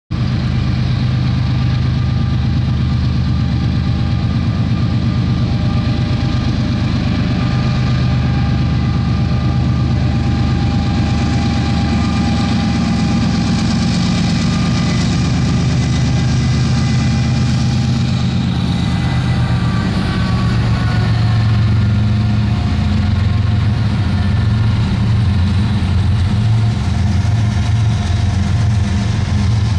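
Diesel locomotives at the head of a CSX intermodal freight train running past under power, a loud steady engine drone with a whine above it. About two-thirds of the way through, the pitch of the whine drops as a locomotive goes by.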